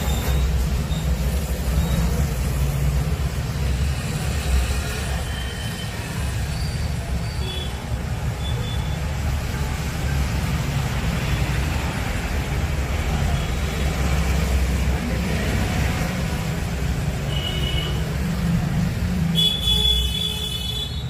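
Steady road-traffic rumble with a few short vehicle horn toots, and a longer horn near the end.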